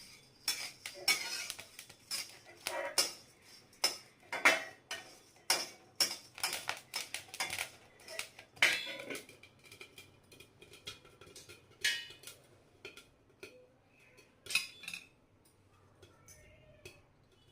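Popcorn kernels popping in a pan: sharp, irregular pops come thick and fast, then thin out over the last several seconds.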